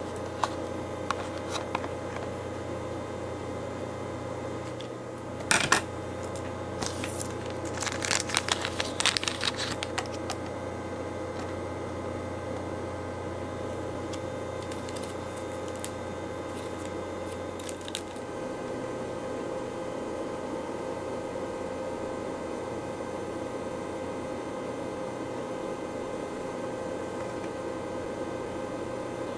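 A small cardboard candy-toy box being torn open and its plastic wrapper crinkled: a sharp rip about five seconds in, then a few seconds of crinkling, and a few light clicks a little later. A steady electrical hum runs underneath, and after that it is the only sound.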